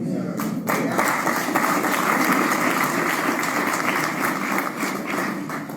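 Audience applauding, picking up about half a second in and fading near the end.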